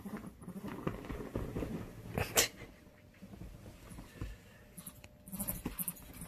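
A pet mink vocalizing in play with short, sharp hissing sounds, the loudest about two and a half seconds in and a cluster near the end, over the rustle of bedding.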